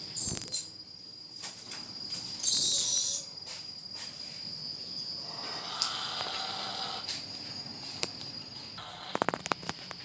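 Two loud, high-pitched calls from a caged parrot: a short whistle that drops in pitch, then about two seconds later a harsher screech lasting under a second. A steady thin high tone runs underneath, and a few light clicks come near the end.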